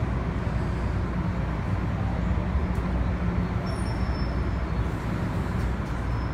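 Interior running noise of an MTR M-Train EMU slowing into a station: a steady low rumble of wheels and running gear, with a faint brief high tone about four seconds in.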